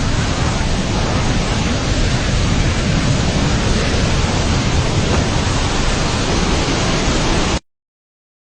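Loud, steady rush of a swollen, flooding river. It cuts off abruptly near the end into silence.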